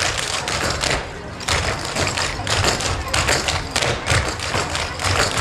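Clogging shoes with metal taps striking the stage in a fast, rhythmic run, a group of dancers stepping together.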